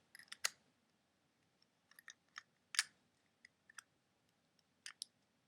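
Scattered light clicks and taps of the interchangeable tips and parts of a toy sonic screwdriver being handled, a dozen or so irregular ticks.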